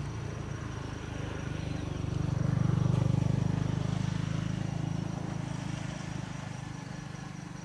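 Low engine rumble of a passing vehicle, swelling about two to three seconds in and then slowly fading.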